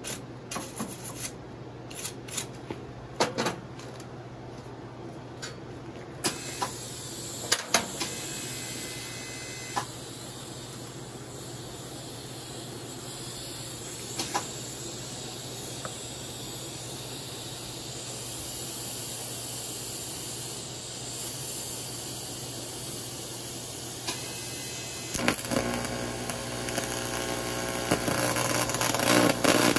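A wire brush scrubs the metal workpiece in short strokes, then a steady hiss sets in. About 25 seconds in, a TIG welding arc strikes and runs with a rough, crackling buzz that grows louder toward the end.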